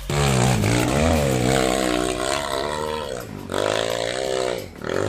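Dirt bike engine revving hard under load on a steep trail climb, its pitch rising and falling with the throttle. It eases off briefly about three seconds in and again near the end.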